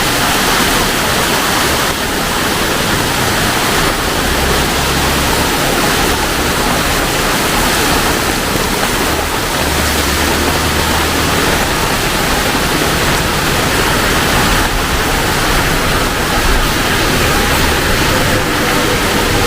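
Heavy rain pouring steadily, a dense even hiss, with a low hum coming in briefly twice.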